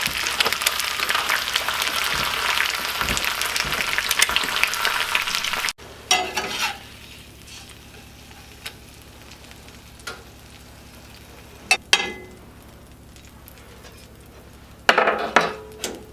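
Bacon sizzling in a frying pan, which stops abruptly about six seconds in. After that there are a few short clatters and knocks over a quiet background.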